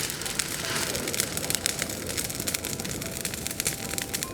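Campfire crackling: a dense run of small, irregular snaps and pops over a steady hiss as the branches catch.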